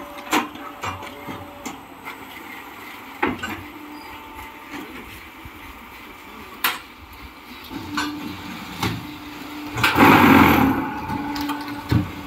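Double-vibrator concrete block making machine at work: a steady hydraulic hum with scattered sharp knocks and clanks from the mould and press. About ten seconds in comes a loud, noisy burst of about a second, the loudest sound, typical of the vibrators compacting the concrete in the mould.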